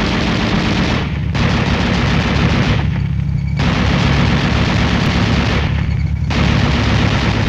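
7.62mm M73 coaxial tank machine gun firing long bursts of fully automatic fire, broken by three short pauses, with a steady low drone running under it.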